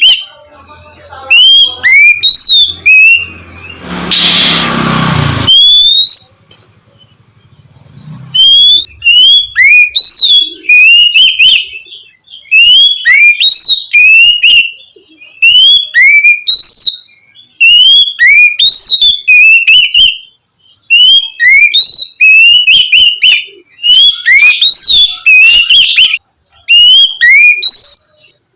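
Oriental magpie-robin (kacer) singing its loud, clear 'ngeplong' song: quick whistled notes that sweep up and down, repeated in dense bursts with short pauses. A brief noisy rush comes about four seconds in, and the song thins out for a few seconds after it before picking up again.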